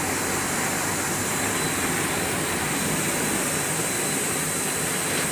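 Machinery of a corn puff snack production line running: a steady mechanical hiss and hum with a faint, constant high whine.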